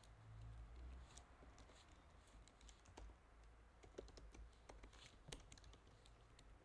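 Faint computer keyboard typing: a run of irregular key clicks.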